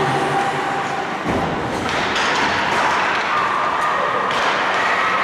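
Ice hockey play in a rink: one dull thud about a second in, over steady arena noise.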